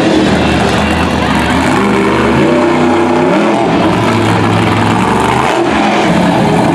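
Monster truck engine revving loudly, its pitch climbing and dropping several times as the truck spins through the dirt and goes up on its rear wheels.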